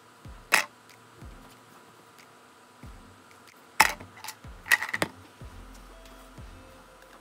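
Wooden popsicle sticks dropped into a large clear jar, clattering against the jar and the sticks already in it: one sharp clack about half a second in, then a quick cluster of clacks around four to five seconds in.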